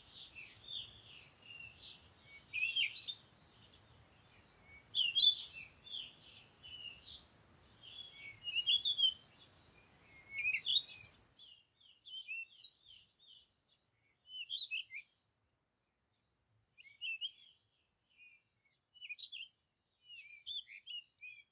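Small songbirds chirping and twittering in short, scattered phrases. A faint steady hiss and hum underneath stops abruptly about halfway through, while the chirping goes on.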